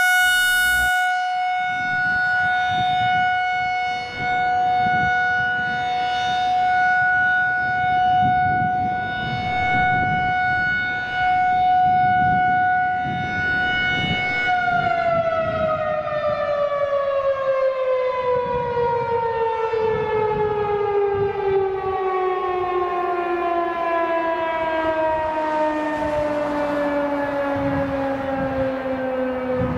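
Federal Signal 2001-SRN electronic outdoor warning siren sounding a steady test tone, its loudness gently swelling and fading. About halfway through it begins to wind down, the pitch falling steadily. Wind buffets the microphone throughout.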